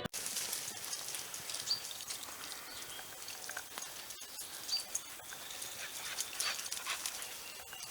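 A dog panting and moving about, faint, with scattered light ticks.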